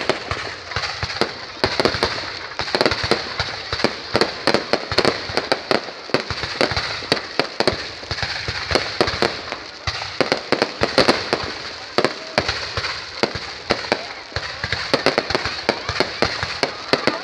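Fireworks and firecrackers going off in a dense, irregular stream of sharp cracks and bangs, several a second without a break, over a continuous crackle.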